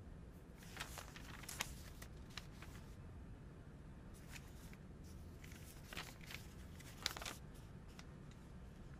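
Paper pages of a comic book rustling as they are handled and turned, in two clusters of short crisp rustles over a faint low room hum.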